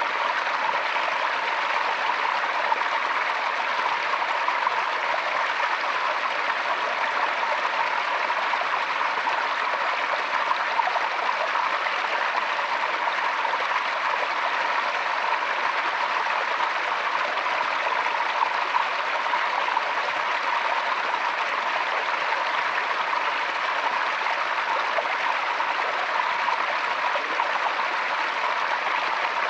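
Forest stream flowing, a steady rush and babble of water.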